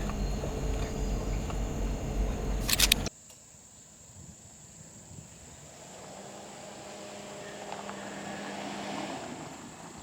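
Car on the move: a steady low engine and road rumble with a couple of clicks near the end, cutting off abruptly about three seconds in. Faint quiet ambience follows.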